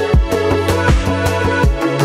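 Background music with a steady beat and a sustained bass line; the bass note shifts near the end.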